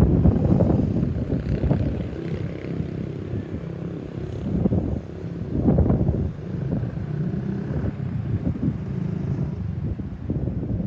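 Low rumble of road traffic, with wind buffeting the microphone in gusts.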